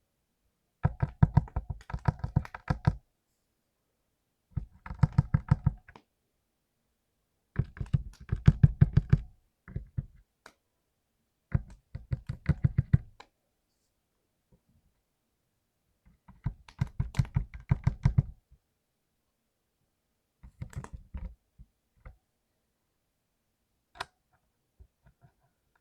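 Mechanical keyboard with clicky blue switches being typed on in quick bursts of keystrokes, about seven runs of rapid clacking separated by short pauses, thinning to a few single keypresses near the end.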